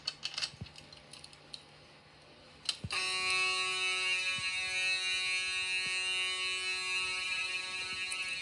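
Fire alarm horn sounding during a walk test: a steady, unwavering multi-tone blare that starts abruptly about three seconds in, after a few sharp clicks.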